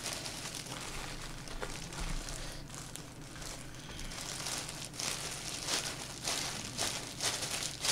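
Disposable plastic gloves crinkling and rustling as gloved hands squeeze and shape seasoned rice into rice balls, with soft irregular crackles.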